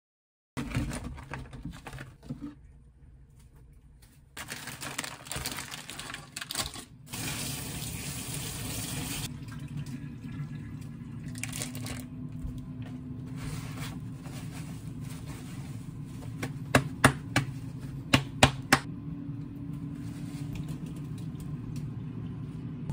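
Raw beef wrapped in a paper towel being handled and struck hard by hand to press out the blood, with about five sharp slaps near the end.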